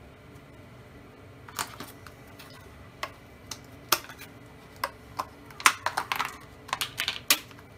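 Thin clear plastic deli tub crackling and clicking as it is handled and its lid is pried open. The sharp clicks are scattered at first and come in a quick cluster near the end.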